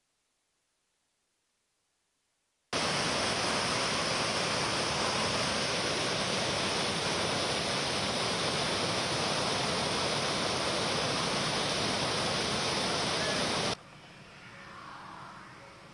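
A few seconds of silence, then fast-flowing muddy floodwater rushing across a road. It is a loud, steady rush of water that starts abruptly about three seconds in and falls away sharply to a faint background near the end.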